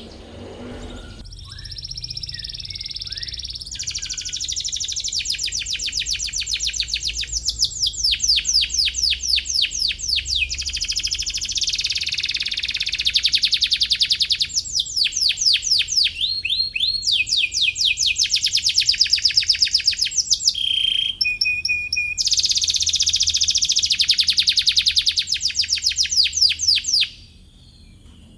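Domestic canary singing: long, fast trills of repeated high chirps in phrases of a few seconds each, with brief breaks between them, stopping about a second before the end.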